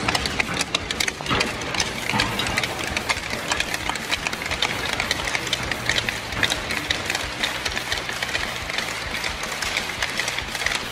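Hockey sticks and skates of a group of young ice hockey players clattering on the ice: a dense, irregular run of sharp clicks and taps.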